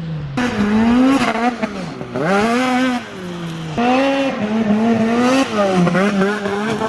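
Snowmobile two-stroke engine revving hard, its pitch climbing and dropping about four times as the throttle is opened and chopped.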